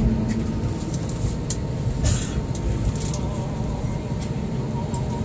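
Steady low rumble inside a jet airliner's cabin as it rolls along the runway just after landing, with a brief hiss about two seconds in.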